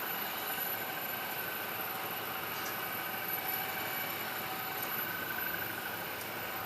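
Metal lathe running steadily, an even mechanical noise with a faint high whine.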